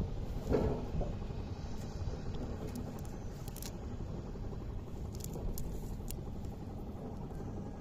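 A steady low rumble, with faint rustling, scraping and small clicks as hands pull a cast net through wet water plants; a louder rustle comes about half a second in.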